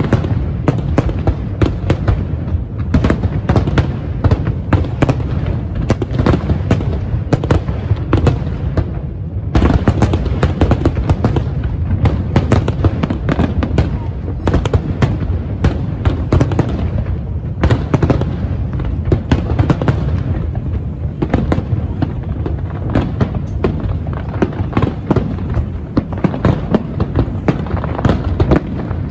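Fireworks display: a dense, continuous barrage of aerial shell bursts and bangs with hardly a gap, easing briefly about nine and a half seconds in.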